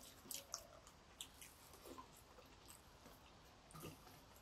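Faint sounds of people eating rice and curry by hand from steel plates: soft chewing and a few small, scattered clicks.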